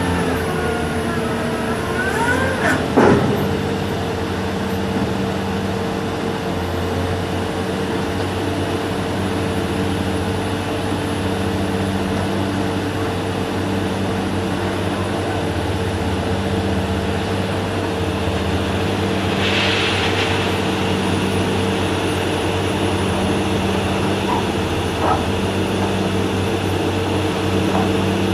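Diesel engine of a Sunward SWDM28 rotary drilling rig running steadily, with a short hiss about twenty seconds in.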